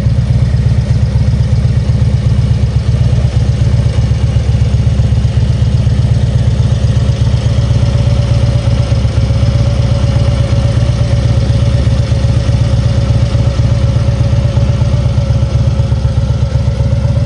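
Harley-Davidson FLHX Street Glide's Twin Cam 103 V-twin idling steadily through aftermarket Cobra mufflers.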